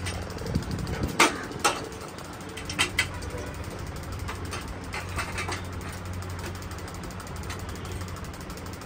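Metal parts of a chrome motorcycle exhaust silencer and pipe being handled and fitted: a few sharp metal clinks in the first three seconds, then fainter taps. A steady low hum runs underneath.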